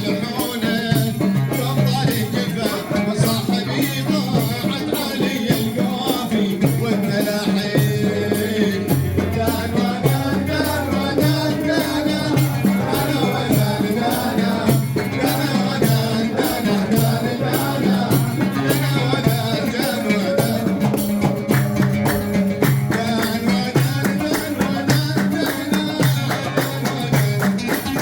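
Live Arabian folk music: an instrumental passage with a steady, fast rhythm of shaken and struck hand percussion over a repeating low bass figure and a winding melody line.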